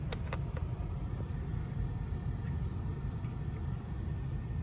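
A car idling, a steady low rumble heard from inside its cabin, with a few light clicks in the first half second.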